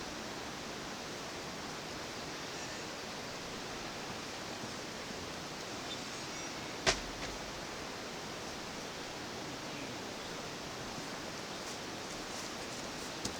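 A steady rush of a fast-flowing mountain river running high after heavy rain. A single sharp click cuts in about seven seconds in.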